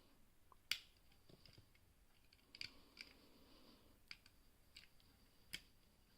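Faint, sharp metallic clicks, about six of them at irregular intervals, from a pick lifting and dropping the brass levers inside a Squire 770 lever padlock held under tension.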